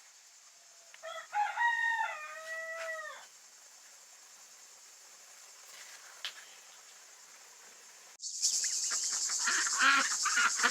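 A rooster crows once, about a second in, a call of about two seconds that glides down in pitch at the end, over a steady high chirring of crickets. About 8 seconds in, the sound jumps to a louder insect chorus with short, busy calls over it.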